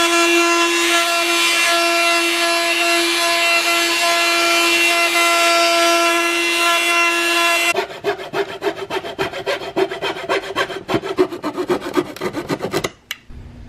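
Oscillating multi-tool with a triangular sanding pad sanding the edge of a plywood board, giving a steady high hum. The hum stops suddenly about eight seconds in and gives way to rapid back-and-forth strokes of a hand saw cutting a thin wooden strip.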